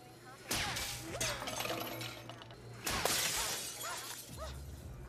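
Two sudden shattering crashes from an action-scene soundtrack, about two and a half seconds apart, each trailing off in scattered tinkling debris.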